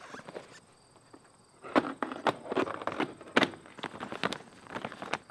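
Clear polyethylene greenhouse sheeting crinkling and crackling as it is handled and pressed against a wood and wire frame, a run of sharp crackles starting a little under two seconds in.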